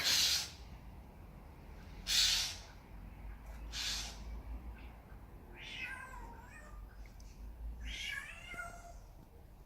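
A jay mimicking a cat. First come three short harsh calls, then two wavering, meow-like calls in the second half.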